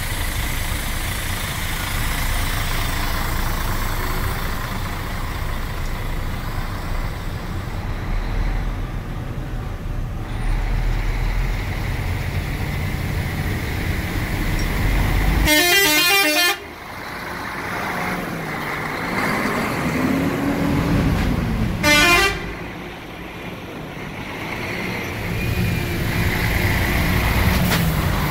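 Diesel truck tractor unit running and pulling away with a loaded-looking tipper semi-trailer, its engine a steady low rumble. It sounds its horn twice: a loud blast about a second long around the middle, and a shorter one some six seconds later.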